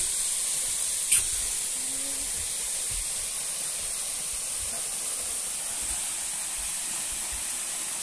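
Steady hiss of rushing water from a waterfall, strongest in the high register, with one brief click about a second in.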